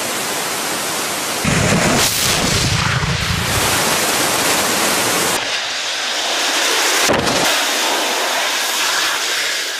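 Nitrous oxide and toffee hybrid rocket motor firing on a rail sled: a loud, steady rushing noise, cut abruptly between shots. In the second half it mixes with the sled smashing into water-filled buffers and throwing up spray.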